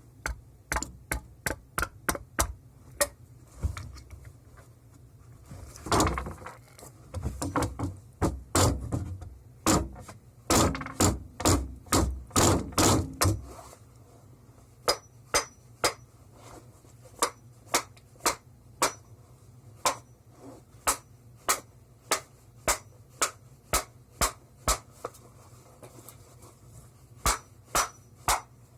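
Repeated sharp metal strikes on a satellite transmitter's die-cast aluminium housing, about two a second, as it is beaten to force it apart. The heavier, thudding blows come in the first half and lighter, evenly spaced taps in the second half.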